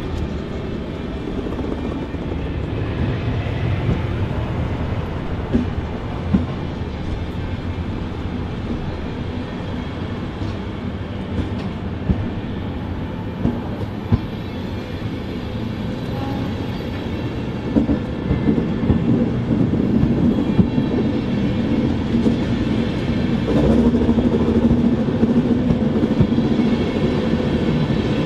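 A train moving through a large station: a steady low rumble with scattered sharp wheel clicks over rail joints. It grows louder in the second half, where a steady hum comes in.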